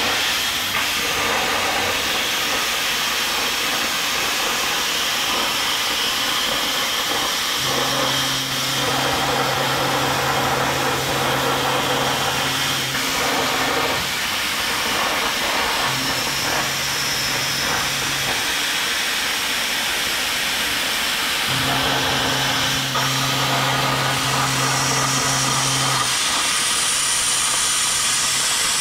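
Plasma torch on a CNC plasma table hissing steadily as it cuts through sheet metal, with a low hum that starts and stops several times.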